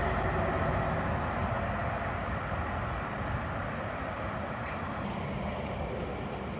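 NGT8D low-floor articulated tram running away around a curve, its rolling noise slowly fading. About five seconds in, it gives way to general street traffic noise.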